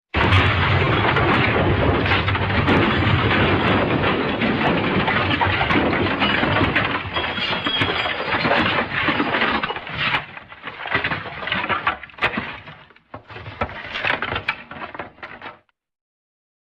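The 'Elephant Smash' crash sound effect: a sudden, loud breaking crash that rumbles on for about ten seconds, then breaks up into scattered clattering debris and dies away near the end.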